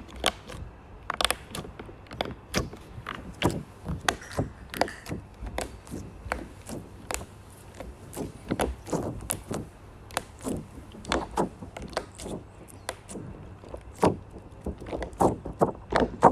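Slime being squeezed and poked by hand, making irregular wet clicks and pops, a few every second.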